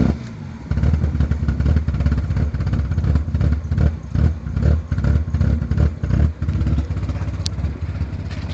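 BMW E36 engine catching just after cranking and running with a rough, uneven idle, its level surging and dropping irregularly; it settles into a steadier, somewhat quieter idle about seven seconds in. The car has a bad misfire.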